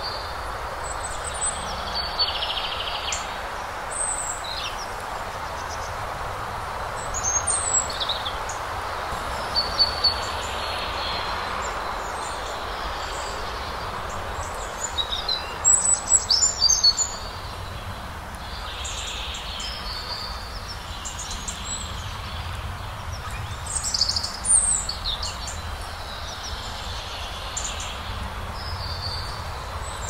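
Small birds chirping and calling over a steady rush of wind, with several louder flurries of quick chirps, the busiest a little past halfway.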